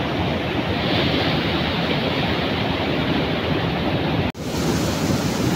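Rushing mountain stream tumbling over boulders in small cascades: a loud, steady rush of white water. The sound cuts out for an instant about four seconds in and then resumes.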